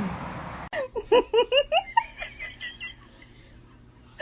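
A person laughing in a quick run of short, high-pitched giggles that trail off after about a second and a half.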